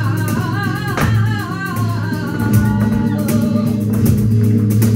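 Live flamenco music: acoustic guitar over a sustained low bass, with a wavering singing voice in the first couple of seconds and a steady run of sharp percussive hits.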